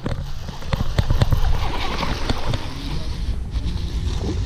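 A baitcasting reel being cranked and a small hooked bass splashing as it is reeled to the boat, with sharp clicks and knocks of handling, over a steady low rumble.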